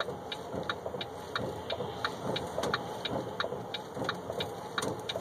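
Steady truck engine and road noise heard inside the cab while driving in heavy rain. Sharp ticks run through it, about four a second.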